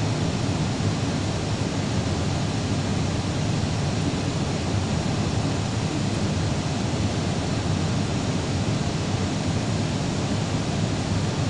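Steady cabin noise inside an Airbus airliner on approach: the even rushing of airflow and jet engines, with a low rumble underneath, heard from a window seat.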